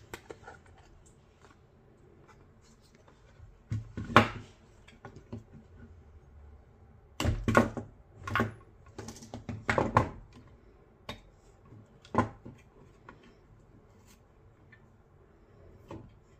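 Plastic housing parts of a Teufel Bluetooth speaker clicking and knocking as they are pulled apart and set down on a wooden workbench: a sharp knock about four seconds in, a cluster of knocks between about seven and ten seconds, and lighter single clicks after that.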